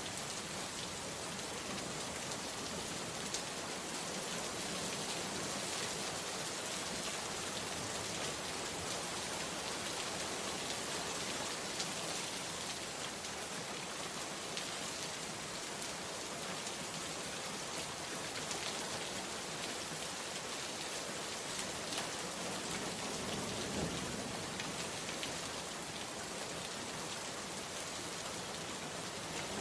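Steady rain falling, a dense even hiss with the sharper ticks of single drops striking now and then.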